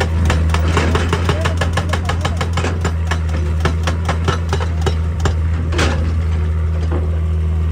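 Hitachi EX200 excavator's diesel engine running with a steady low drone, under a rapid train of sharp knocks, about six a second. The knocks stop about five and a half seconds in, and one louder knock follows.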